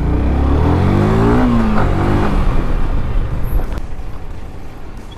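Motorcycle engine pulling away and accelerating, rising in pitch, easing off and rising again about two seconds in as it shifts up. It then gives way to a steady rushing noise that slowly fades.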